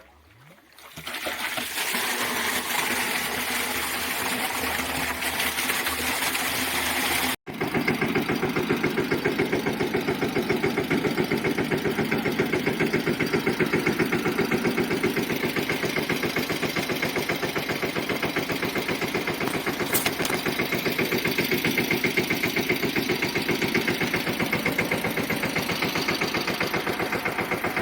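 A steady hissing noise for the first several seconds. Then, after a sudden break, a tractor engine runs with a fast, even pulsing beat, driving a pesticide sprayer pump.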